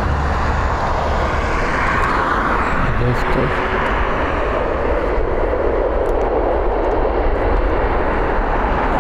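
Steady jet roar from the CFM LEAP-1B engines of an arriving Boeing 737 MAX 8-200 airliner, with a deep low rumble under it.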